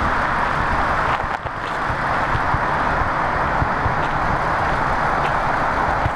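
Wind of a snowstorm blowing over the microphone: a steady rushing hiss with gusty low rumbling underneath.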